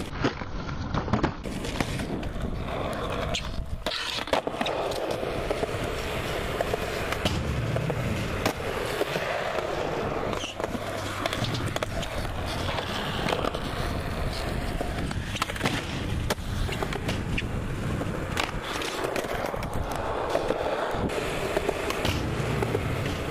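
Skateboard wheels rolling on smooth concrete, with repeated sharp clacks of the board popping, landing and hitting ledges.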